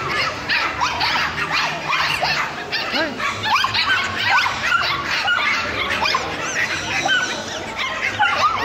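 Several puppies yipping and whining in quick, overlapping high calls.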